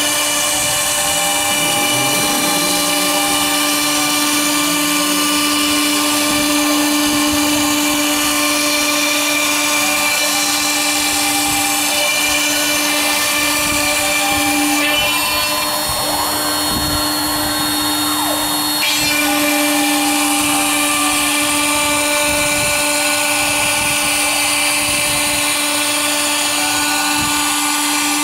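CNC router spindle running at a steady high pitch while cutting wood, over a constant hiss. A fainter whine rises and falls every few seconds, and the hiss changes for about four seconds midway.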